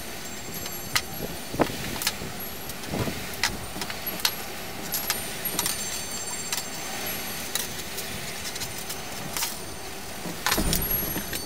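Wire being handled and bent by hand on a plywood tabletop: scattered clicks and light metallic clinks, with a louder, busier clatter about ten and a half seconds in.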